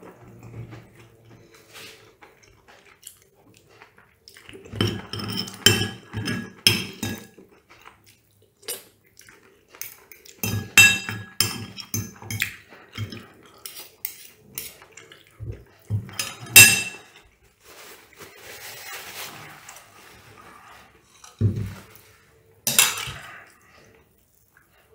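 Metal fork and spoon clinking and scraping against a ceramic plate during eating, in irregular bursts with a few sharp, ringing clinks, the loudest about sixteen seconds in.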